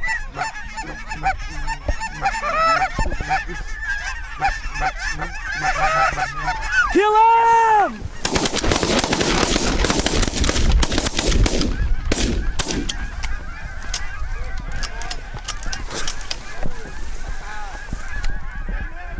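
A flock of geese honking overhead, many calls overlapping, the loudest just before a volley of shotgun fire about eight seconds in. After the shots the honking goes on, fainter.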